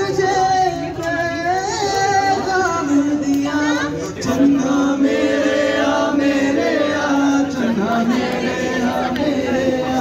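A man singing into a handheld microphone, his voice amplified, with long held notes.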